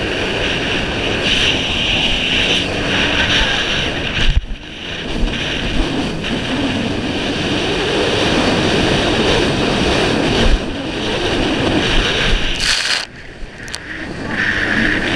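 Yamaha jet ski's engine running at speed, with water spray rushing past the hull and wind buffeting the microphone. The sound drops briefly about four seconds in, and again for about a second near the end.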